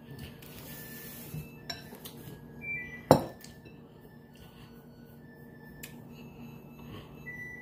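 A ceramic bowl being turned and set down on a table, with one sharp knock about three seconds in and a few lighter clinks of the dish and a fork against it.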